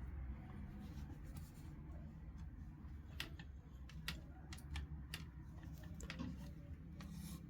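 Scattered light clicks and taps of small tools and parts being handled, over a low steady hum; most of the clicks fall in the second half.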